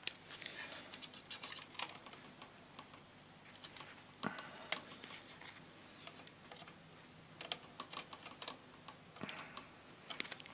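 Faint, scattered clicks and brief scraping of a hand tool against a metal radio chassis as old gunk is cleaned away.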